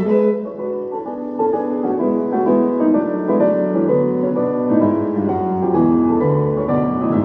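Piano-led music with other instruments playing from a Brandt RK 813 S boombox, the French-badged Sanyo M9996, without pause.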